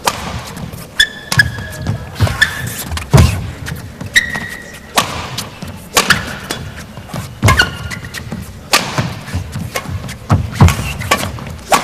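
Badminton rally: irregular sharp knocks of rackets hitting the shuttlecock and low thuds of footwork on the court, mixed with brief high squeaks of shoes gripping the court floor.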